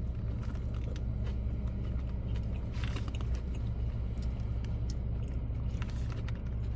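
A person chewing food close to the microphone, with soft scattered crunches and mouth clicks over a steady low hum.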